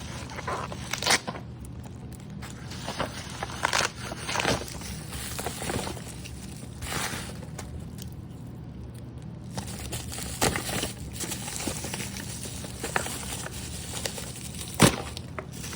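Toy-car packaging being handled: irregular crinkling and rustling with scattered clicks and crackles, and one sharp click near the end that is the loudest sound. A steady low hum sits underneath.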